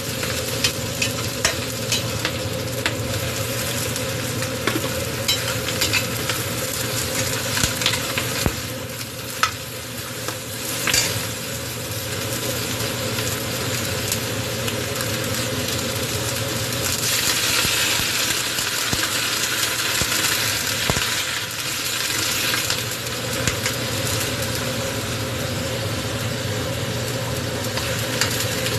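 Food frying in hot oil in a pan, a steady sizzle with frequent clicks and scrapes of a spatula stirring it. The sizzle grows louder for a few seconds past the middle.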